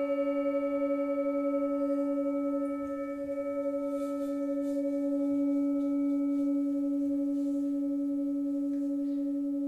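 Tibetan singing bowl ringing on after being struck, a low sustained hum with a slow pulsing waver. Its brighter overtones fade over the first few seconds while the deep tone holds.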